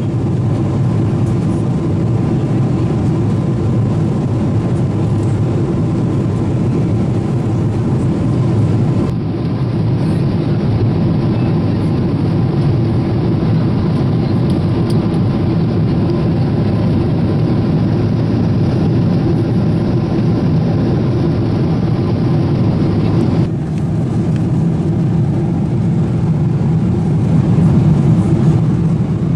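Steady rumble of cabin noise inside a Boeing 777-300ER in flight, engine and airflow noise heard from a passenger seat.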